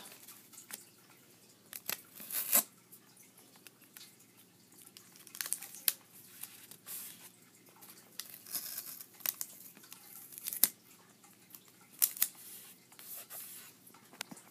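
Paper scratch-off lottery ticket being handled and turned over on a table: scattered rustles and crinkles with a few sharp ticks.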